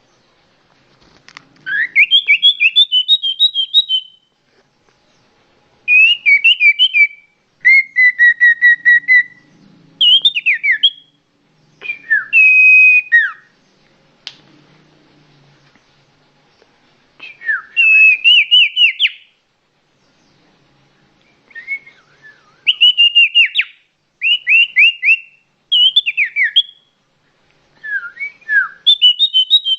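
A songbird singing loud phrases of rapid, repeated whistled notes, each phrase lasting a second or two, with short pauses between them.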